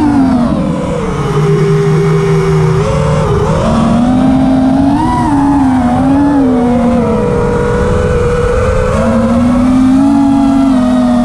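FPV quadcopter's electric motors and propellers whining, heard from the onboard camera. The pitch drops about a second in, climbs again around four to five seconds, dips, and rises once more near the end as the throttle changes.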